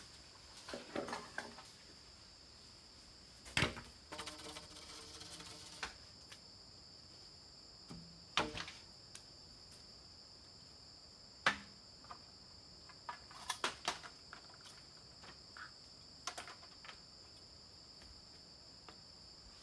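Sharp knocks and taps of bamboo poles being handled and set in place, scattered through, the loudest about a third and halfway in and a quick cluster a little later. Under them, a steady high-pitched insect drone.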